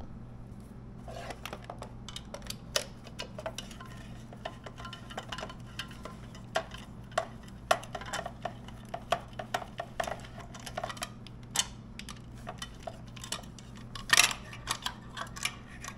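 Socket wrench ratchet clicking in short, irregular runs and metal tool clinks as an 8 mm bolt is worked loose, with a louder run of clicks near the end. A steady low hum runs underneath.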